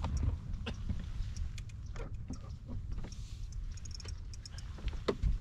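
Wind rumbling on the microphone, with scattered light clicks and knocks from a fish being landed and handled in the boat; the loudest knock comes near the end.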